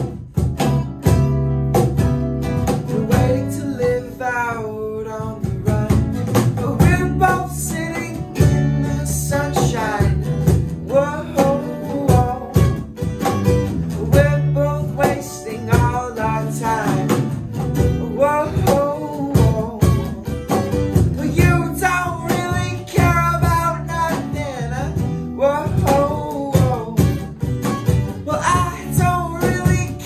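Live acoustic band playing: a man sings lead over strummed acoustic guitars, an electric bass and a cajón keeping a steady beat.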